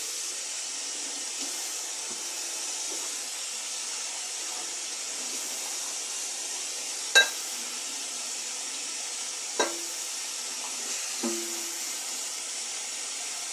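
Tap water running steadily over meat grinder parts being rinsed in a sink, with three sharp metal clinks as the parts knock together or against the sink, the first the loudest.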